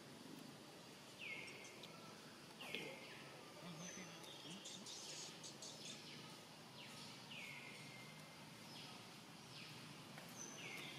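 Faint, high-pitched animal calls repeating about every one and a half seconds, each sliding down in pitch and then holding briefly, with a few faint clicks near the middle.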